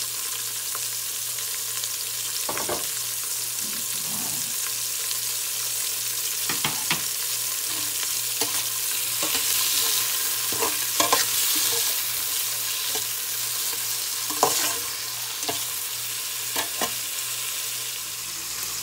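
Tomatoes, onions and garlic sizzling in oil in an aluminium pot, the sautéing stage where the tomatoes are left to soften. A metal ladle and spatula scrape and clink against the pot every few seconds as the pan is stirred.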